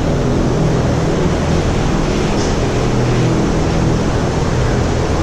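Steady running machine noise with a low droning hum, unchanging throughout.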